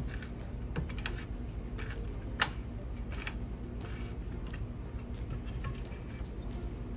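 Scattered small clicks and taps from the recoil starter pulley and spring of a Skilsaw 1616 chainsaw being turned and handled as the spring is wound by hand, with one sharper click about two and a half seconds in. A low steady hum runs underneath.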